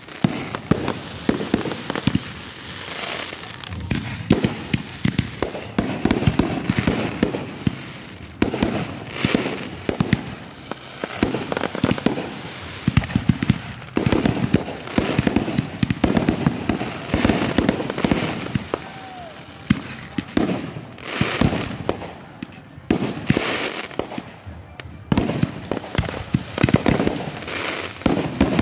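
Consumer fireworks going off in a rapid barrage: overlapping bangs from bursting shells and dense crackling, with a new burst every second or so.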